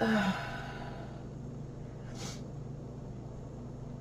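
A person's brief vocal sound right at the start, rising slightly in pitch, then a sniff about two seconds in, over a steady low hum.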